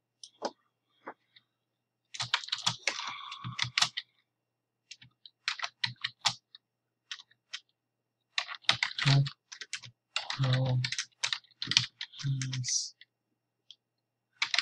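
Typing on a computer keyboard: a few single clicks, then several short bursts of rapid keystrokes with pauses between them.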